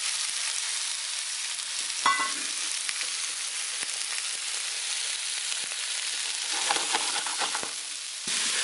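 Lamb chops frying in oil in a non-stick pan, a steady high sizzle, with a short click about two seconds in.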